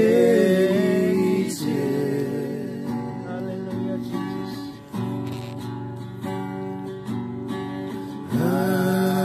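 Men singing a Chuukese Christian hymn together to a strummed acoustic guitar, in long held notes; a new sung phrase enters loudly near the end.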